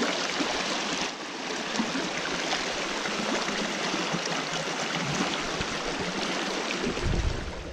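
River rapids: water rushing steadily over and around rocks in shallow whitewater.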